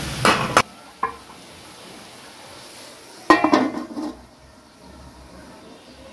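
Metal spatula scraping mutton in sizzling oil on a tawa; the sizzling stops abruptly within the first second. About three seconds in, a metal lid clatters down onto the tawa with a brief ringing clank.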